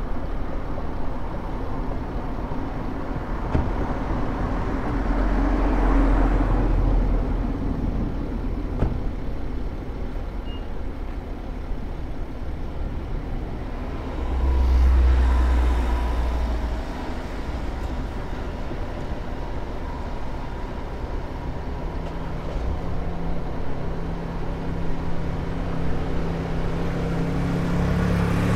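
Vehicle noise: a continuous deep rumble that swells twice, about five seconds in and again about fifteen seconds in.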